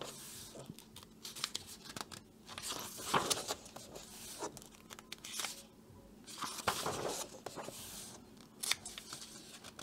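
Paper pages of a paperback coloring book being turned and smoothed flat by hand, a soft rustle and swish with each page, about every second or two.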